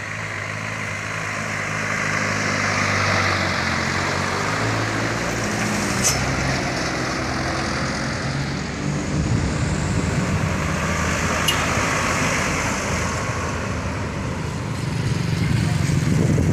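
Heavy diesel trucks passing with engine and tyre noise. One engine's note steps up and down through the first half, then a deeper rumble builds and is loudest near the end. Two brief sharp clicks sound about midway and about two-thirds of the way in.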